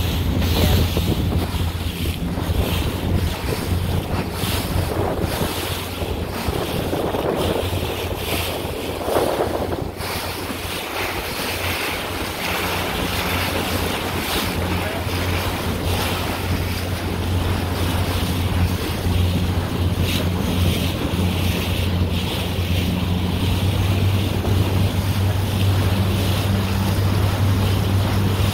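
Motorboat engine running with a steady low drone, with water rushing along the hull and wind buffeting the microphone.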